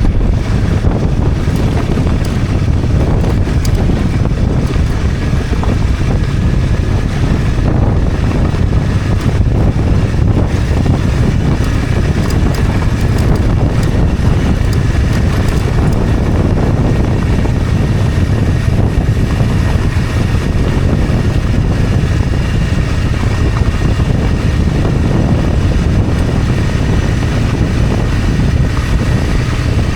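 Honda CRF250 Rally's single-cylinder four-stroke engine running steadily as the motorcycle rides down a dirt road, with wind rumbling on the microphone.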